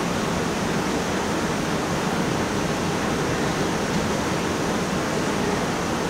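Steady, even background noise in a gymnasium, unchanging throughout, with no distinct knocks, shouts or whistles.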